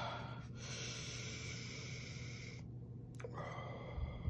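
A man breathing out hard through his open mouth against the burn of scorpion and Carolina Reaper pepper sauce. There is one long exhale of about two seconds that stops abruptly, then a shorter breath near the end.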